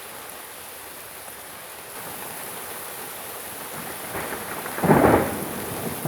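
Steady rain falling on surfaces, then a loud clap of thunder about four seconds in, peaking near five seconds and rumbling on.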